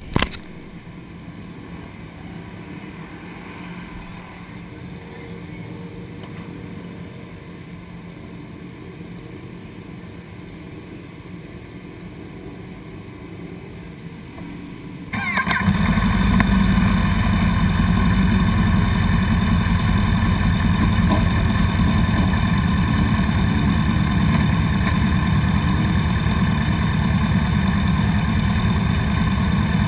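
A low background of motorcycle engines running, then about halfway through a sport motorcycle's engine starts abruptly close up and settles into a steady, much louder idle. A brief knock at the very start.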